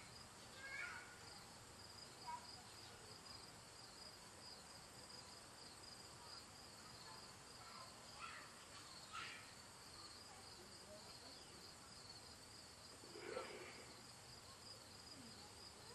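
Near silence with faint, steady, evenly pulsing insect chirping, typical of crickets, and a few faint brief sounds scattered through it.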